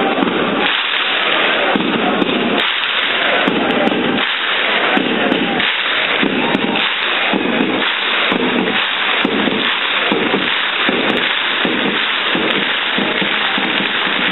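Large football crowd in a packed stand chanting together, loud and dense, with a regular beat about twice a second from the fans keeping time.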